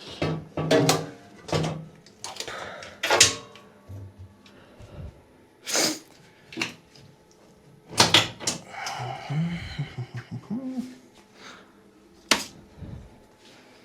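Irregular knocks, clunks and scraping of washing-machine parts being handled and fitted into the cabinet, with a sharp knock every second or two and several loud ones spread through.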